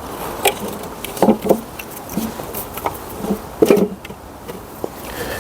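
Light knocks and clatters of an intake manifold being handled and set down onto a V12 engine: about half a dozen short knocks, the loudest double knock near the end, over a faint steady hiss.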